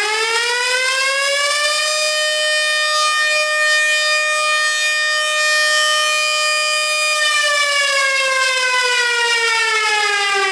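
3D-printed 100 mm air-raid siren, a motor-driven replica of a Stuka's Jericho trumpet, wailing loudly. Its pitch rises over the first couple of seconds as the rotor speeds up, holds steady for about five seconds, then slides down as it slows.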